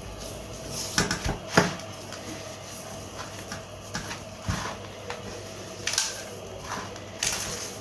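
Hands packing coarse salt into and around whole mullet and laying the fish in a container: irregular gritty rustles and light knocks, a few louder ones scattered through, over a faint steady hum.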